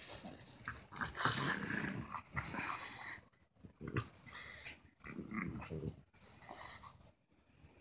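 A French bulldog and a Peke-a-pom puppy play-fighting, growling in several short bouts with brief pauses between them.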